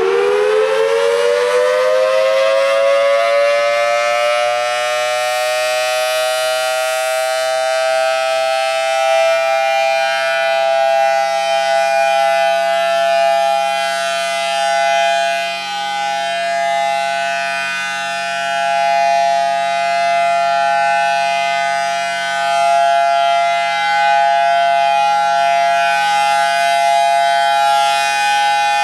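Federal Signal Thunderbolt 1003A outdoor warning siren sounding a test: its pitch rises as it finishes winding up and levels off within the first few seconds, then it holds a steady, loud wail whose loudness swells and dips slowly as the rotating siren head turns.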